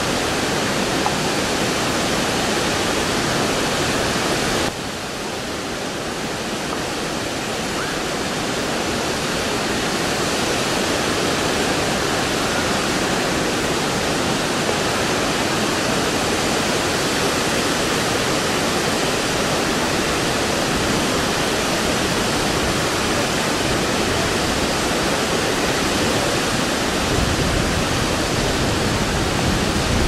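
Steady rush of a river pouring over rocky falls and shallows. It drops slightly about five seconds in and builds back up. Near the end a low rumble of wind on the microphone joins it.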